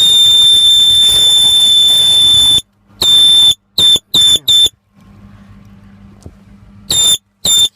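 Air horn blasting a high-pitched steady note. It gives one long blast of about two and a half seconds, then a shorter blast and three quick short blasts, and after a pause of about two seconds, two more short blasts near the end.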